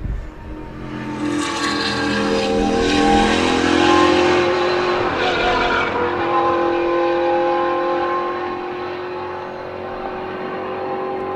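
Hansen GTR race car's 6.0-litre W12 engine accelerating, its pitch rising over the first few seconds. It then holds a steady note and grows fainter toward the end.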